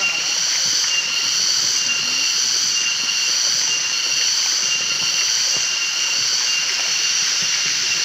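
Steady rush of a waterfall and its shallow stream over rocks, with a steady high-pitched drone laid over it.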